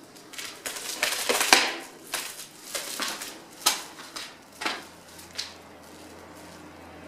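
Footsteps crunching and scraping on rubble and litter over a concrete floor in a small enclosed room, a dozen or so irregular steps about two a second, dying away into a faint low hum near the end.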